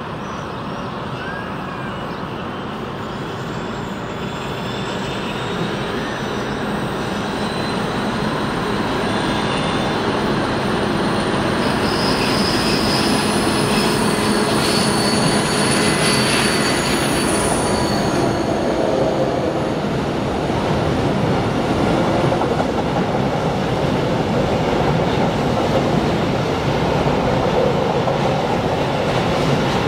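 DB Class 232 diesel locomotive approaching and passing, hauling empty ballast hopper wagons; its engine and rumble grow steadily louder over the first dozen seconds. High wheel squeal is heard on the curve as the locomotive passes. The empty hopper wagons then rumble and clatter by.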